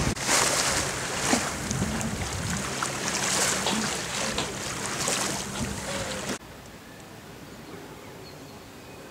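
Wind and water rushing aboard a sailing yacht underway, with a steady low hum and a few clicks. About six seconds in it cuts off sharply to a much quieter, steady background.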